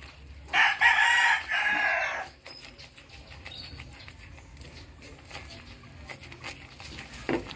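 A rooster crows once, loud, for about two seconds starting about half a second in. After that, only the faint scrape and tick of a wooden spoon stirring thick flour gravy in a frying pan.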